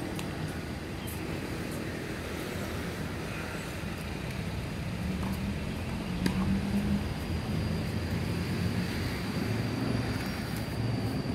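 Steady low rumble of distant road traffic, with a thin high whine running through it and a single sharp knock about six seconds in.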